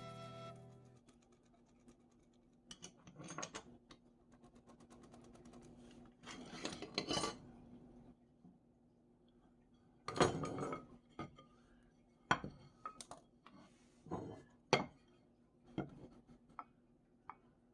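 Scattered metallic clinks, knocks and short scrapes of iron pieces being handled, with gaps between them, over a faint steady hum. The tail of a flute tune fades out within the first second.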